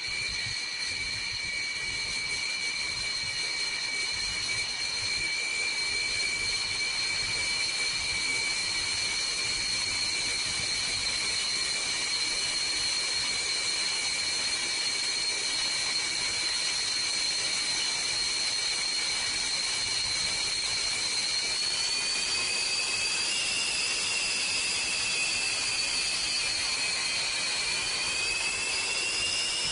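Aircraft turbine engine running with a high-pitched whine over a steady rush of noise. The whine holds one pitch, rises a little about two-thirds of the way through, dips, then rises again near the end.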